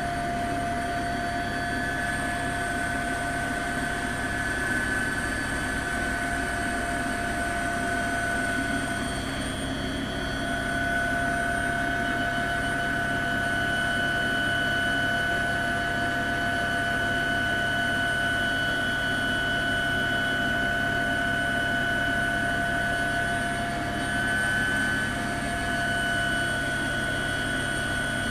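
Helicopter turbine engine and rotor noise, heard from aboard the helicopter: a steady drone with several high, whining tones held throughout.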